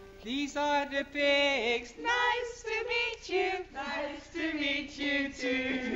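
A few women singing a simple children's song together in English, with lines like "these are the pigs" and "nice to meet you too".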